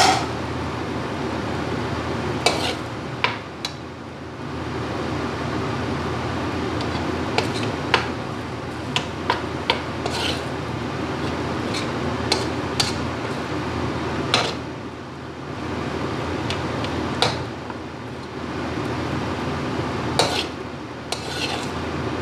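Metal ladle and spatula scraping and clanking against a stainless steel wok as fried rice is stir-fried, with irregular sharp knocks every second or two over a steady frying sizzle.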